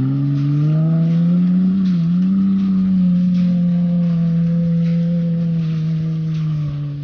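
Honda Ridgeline's V6 engine revving hard under load as the truck climbs a soft sand dune. Its pitch rises in the first second, dips briefly about two seconds in, then holds high and steady before fading near the end.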